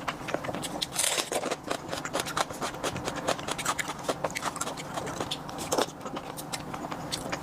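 Close-miked eating sounds: chewing, with a dense run of small clicks and scrapes.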